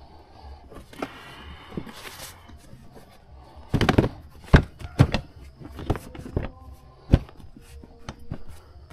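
A brief rustling scrape, then a run of sharp knocks and thumps close to the microphone, about half a dozen, the loudest between about four and seven seconds in.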